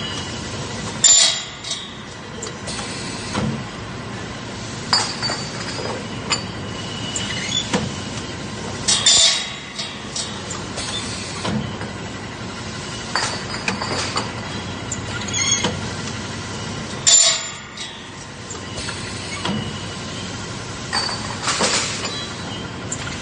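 Semi-automatic metal cutting machine running steadily, with sharp metallic clinks and clanks from the metal cylinder parts every two to four seconds, some ringing briefly.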